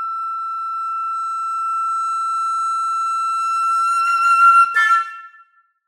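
Solo silver concert flute holding one long high note that swells louder near the end, with a brief change of note just before it stops.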